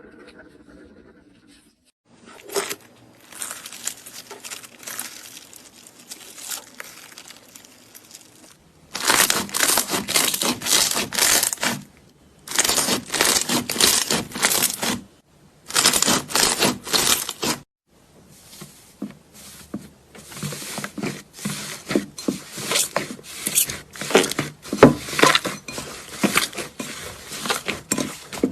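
Slime being squeezed and stretched by hand, making dense crackling and popping. It comes in three loud bursts a few seconds long, then a long, quickening run of crackles that grows louder.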